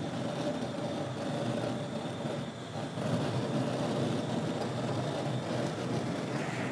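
Hestan gas grill's trellis burners burning, a steady rush of gas flame that gets a little louder about three seconds in.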